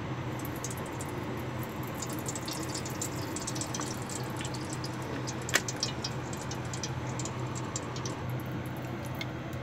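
Cooking oil poured from a bottle into an aluminium wok, then faint scattered crackling ticks as the oil heats, over a steady low hum. One sharper tick comes about five and a half seconds in.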